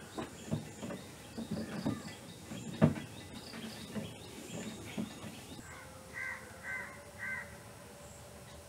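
A crow cawing three times, about half a second apart, near the end. Before it comes a run of irregular knocks and taps, the loudest about three seconds in.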